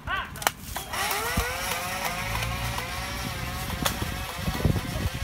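A motor running, winding up in pitch about a second in and then holding a fairly steady hum. A couple of sharp clicks sound over it, one early and one near the end.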